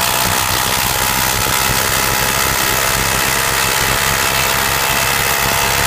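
Black & Decker 8-volt cordless impact driver running steadily under load, its impact mechanism hammering as it drives a 3-inch deck screw into a 2x4.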